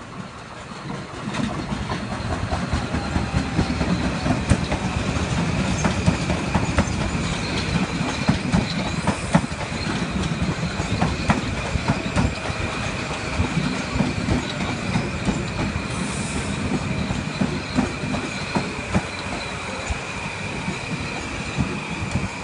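Metro-North New Haven Line M8 electric multiple-unit train passing, its wheels clacking over the rail joints with a low rumble. A steady high-pitched whine runs through the passage from about a third of the way in.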